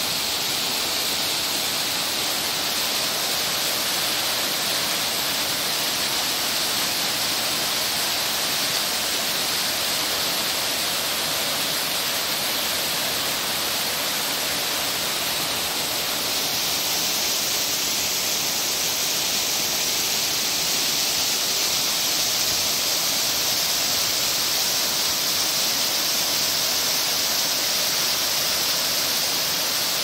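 Waterfall pouring down a rock face, heard up close as a steady rushing hiss of falling water. It grows a little brighter and louder about halfway through.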